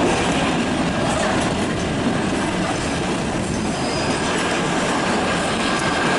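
Kalka–Shimla narrow-gauge train running, a steady noise of the carriage and wheels on the track. A faint thin high tone joins about four seconds in.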